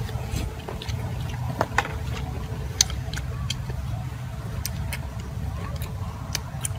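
Eating snails by sucking the meat out of their shells: a string of short, sharp mouth clicks and smacks, over a steady low rumble.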